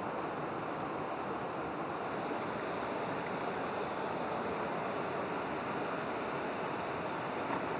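Creek water pouring over a low weir, rushing steadily with no breaks.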